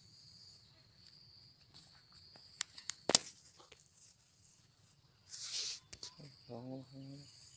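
Steady high chirring of insects such as crickets, with a few sharp clicks about three seconds in, the last one the loudest, a brief rustling hiss later, and a short burst of a man's voice near the end.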